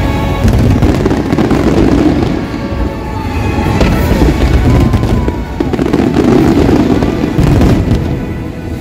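Fireworks display with a dense run of bangs, rumbles and crackles, the loudness swelling and easing in waves, over the show's soundtrack music.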